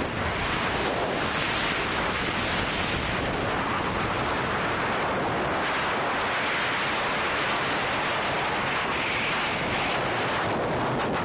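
Freefall wind rushing steadily over the camera's microphone during a tandem skydive.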